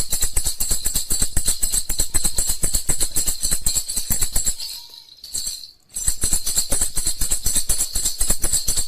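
Baby rattle (jhunjhuna) shaken rapidly, a fast continuous rattling jingle; it drops off for about a second some five seconds in, then starts again.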